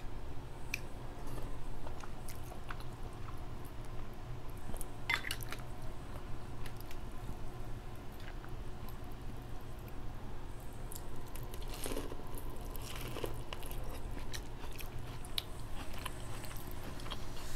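A person chewing and biting crab legs from a seafood boil: soft wet chewing with scattered small clicks and crackles, and a few louder crunches about five seconds in and again around twelve seconds, over a steady low hum.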